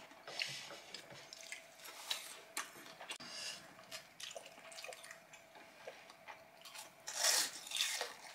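Quiet eating at a table: scattered small clicks of utensils and dishes and soft chewing, with louder chewing bursts near the end. A faint steady hum runs underneath.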